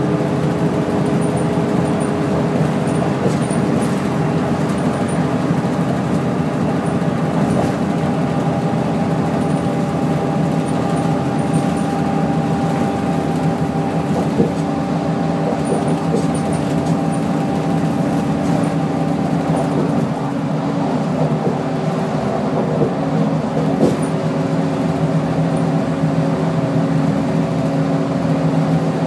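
Interior running noise of a NABI 40-LFW low-floor bus under way, its Cummins ISL-G natural-gas engine and Allison B400R automatic transmission giving a steady hum with a few held tones. The sound eases and the tones shift briefly about two-thirds of the way through, and small rattles come and go.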